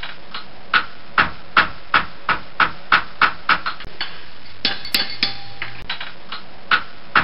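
Hammer blows on steel at an anvil, a steady run of ringing strikes about three a second. About halfway through the blows stop for a couple of seconds of hissing noise, then pick up again near the end.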